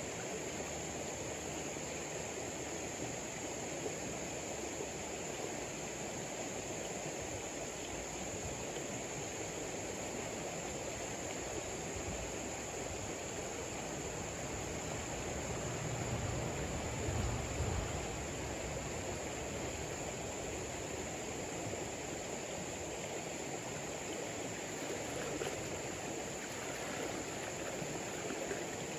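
Steady rush of river water, with a steady high insect drone above it. A louder low rumble swells briefly a little past halfway.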